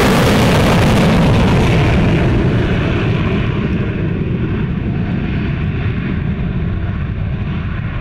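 Fighter jets in formation flying past: a loud jet-engine roar that fades as they draw away, its hiss dying first and leaving a low rumble.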